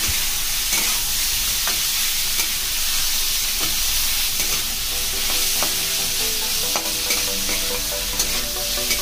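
Shredded cabbage with onion, chilli and tomato sizzling as it fries in an iron kadhai, stirred with a metal spatula that scrapes and clicks against the pan now and then.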